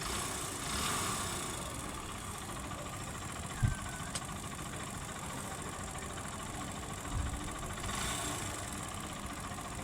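Hero Splendor motorcycle's single-cylinder four-stroke engine idling with a very bad noise from inside, which the mechanic puts down to a worn timing (cam) chain. A single low thump comes about three and a half seconds in, and a smaller one near seven seconds.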